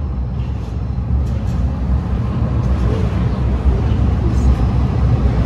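Calgary C-Train light-rail train pulling in beside the platform, a low rumble that grows louder as the cars pass close by.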